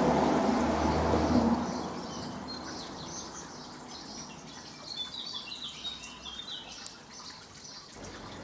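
A rushing noise with a low hum that dies away after about a second and a half, then small birds chirping in quick, short high notes about halfway through.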